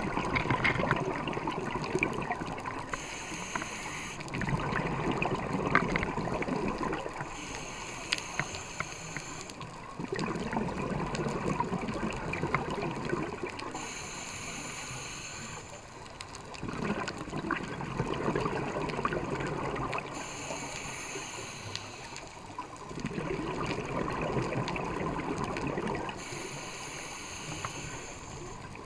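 A scuba diver breathing through a regulator underwater: five hissing inhales about six seconds apart, each followed by a few seconds of bubbling as the exhaled air vents.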